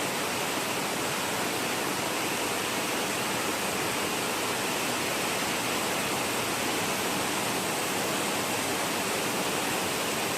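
Heavy rain pouring down steadily, a loud, unbroken hiss with no thunder claps.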